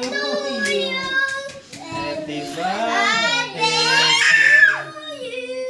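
Several young children's voices singing and calling out at once, with a loud high-pitched squeal about four seconds in.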